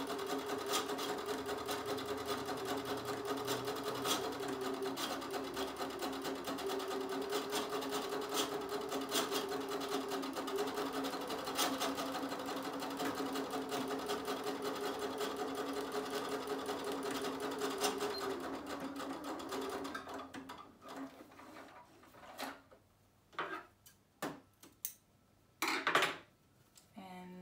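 Domestic electric sewing machine running steadily at an even pace while stitching a line of shirring, then stopping about two-thirds of the way through. A few separate clicks and knocks follow near the end.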